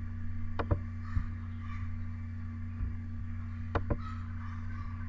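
A few computer mouse clicks, with a quick pair near the end, over a steady low hum.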